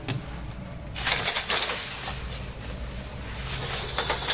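Plastic shower curtain rustling and scraping as it is pulled aside by hand, in two spells: about a second in, and again near the end.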